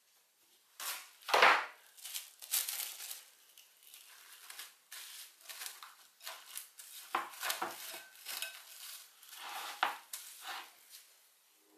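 Plastic cling wrap being pulled and stretched over a ceramic mixing bowl: a run of irregular crinkling rustles, the loudest about a second in, with a few soft knocks as the wrap is pressed onto the bowl rim.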